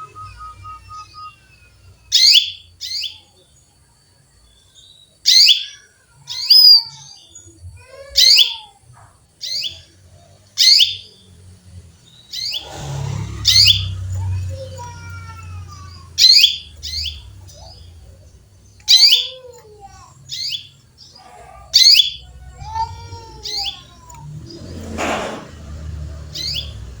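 Female canary calling for a male: short, sharp chirps, each a quick downward sweep, repeated every second or two, with softer curving notes between them. A low rumble rises briefly in the middle and again near the end.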